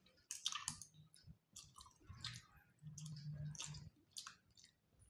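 Faint eating sounds: scattered small clicks and squishes of fingers mixing rice and picking at fish on steel plates, with chewing.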